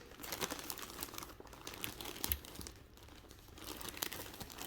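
Packaging crinkling as it is handled, in irregular crackles with a brief lull about three seconds in, while cakes of cotton yarn are brought out.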